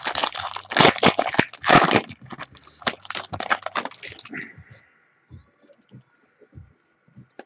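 A trading-card pack wrapper being torn open and crinkled, a dense crackling for about the first four seconds, then only a few soft clicks and rustles as the cards are handled.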